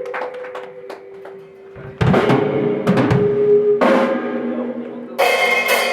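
Grindcore band's drum kit and amplified instruments between or at the start of songs: a held amplified note rings under loose drum hits, heavy drum strikes come in about two seconds in, and a crash cymbal hits near the end.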